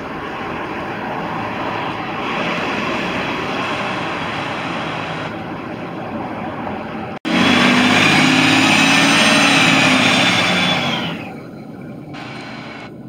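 City bus engine running in street traffic. About seven seconds in, the sound cuts abruptly to a louder, closer engine with a steady high whine over a low hum, which fades away near the end.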